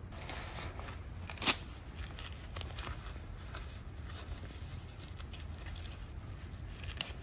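Rain-suit fabric rustling as the jacket is pulled on, and the hook-and-loop cuff strap being pulled and pressed down to seal the sleeve. A sharp knock sounds about a second and a half in, with a smaller one near the end.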